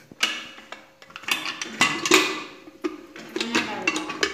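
Metal serving spoon and dishes clinking and scraping in irregular clatters as food is dished out onto a plate.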